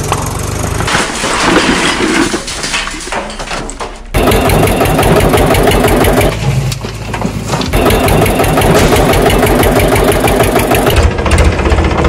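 Diesel tractor engine running with a low, even thudding. It weakens about a second in and comes back abruptly about four seconds in, then runs on strongly.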